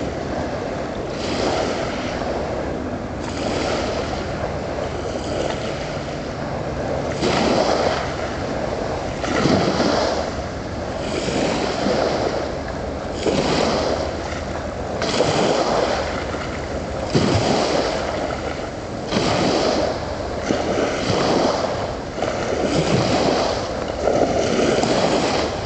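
Small waves lapping and splashing at the water's edge in a steady rhythm, one wash about every two seconds.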